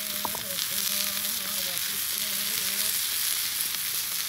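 Meat and onion slices frying on a slate slab heated over a wood fire: a steady, even sizzle.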